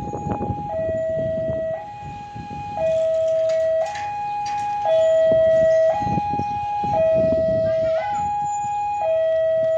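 Two-tone siren alternating between a higher and a lower note, each held about a second, over a low rumbling noise.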